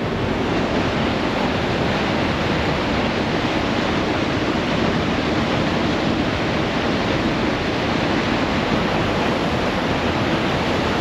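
Steady, loud rush of a waterfall, an even roar of falling water with no breaks.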